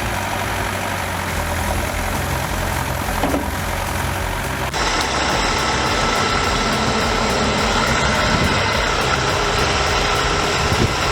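Heavy construction machine's engine running steadily at low speed. About four and a half seconds in, the engine noise turns slightly louder and harsher.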